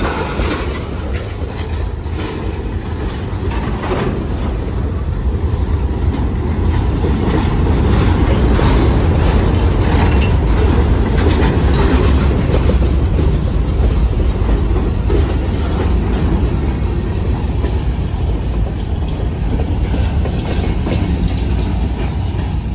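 Union Pacific freight train rolling past: a steady low rumble from the cars with wheels clicking over the rail joints, loudest about halfway through and easing off toward the end.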